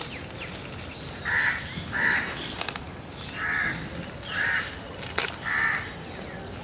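A crow cawing, five caws in about four seconds, with a few sharp clicks between them.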